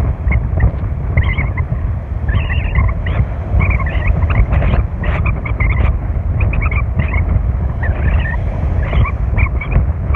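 Strong sea wind buffeting the microphone in a steady low rumble, with short high chirps scattered over it.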